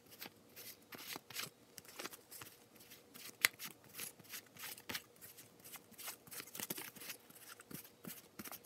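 A stack of paper US one-dollar bills counted by hand, each bill flicked over with a short crisp rustle, several a second, irregular, with one sharper snap about three and a half seconds in.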